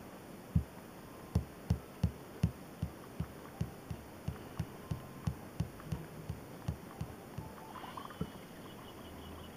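Fingertip taps on a Samsung smartphone's touchscreen: about twenty soft, low taps, roughly three a second, louder at first and stopping about eight seconds in. Near the end the phone gives a faint electronic beeping.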